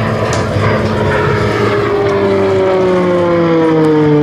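Beechcraft T-6C Texan II's Pratt & Whitney Canada PT6 turboprop and propeller droning overhead, its pitch sliding steadily down from about a second in.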